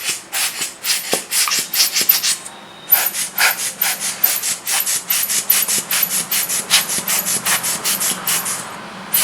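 Rubber hand air blower squeezed over and over, puffing short bursts of air at about four a second to blow dust off a camera lens. Two brief pauses break the run.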